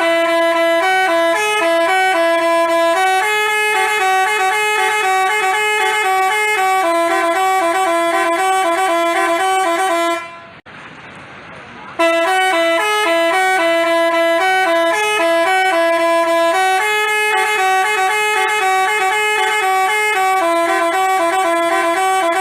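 Basuri telolet multi-tone horn playing a tune, its notes changing in quick steps. The tune breaks off about ten seconds in and starts again about a second and a half later.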